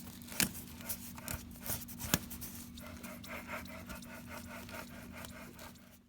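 Handling of a Vortech V2T supercharger: two sharp knocks, then a rhythmic scraping of about four strokes a second over a low steady hum, cut off abruptly near the end.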